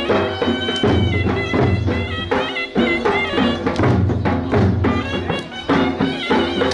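Sharnai (shehnai-type double-reed pipe) playing a high, ornamented folk melody over a steady dhol drum beat.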